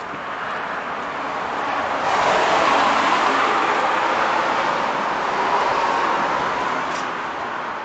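Street traffic: a passing vehicle's tyre and engine noise, swelling about two seconds in, holding, then slowly fading.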